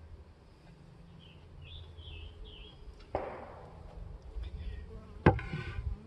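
Honeybees buzzing at an open horizontal hive as a steady low hum. About three seconds in there is a short scrape, and near the end a sharp knock, the loudest sound.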